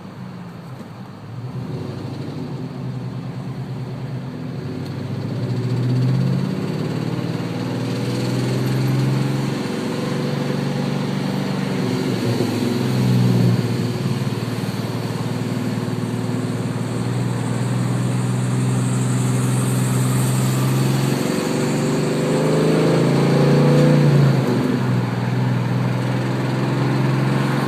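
Engine running, its speed rising and falling a few times as it is revved; the owner suspects a bad valve lifter.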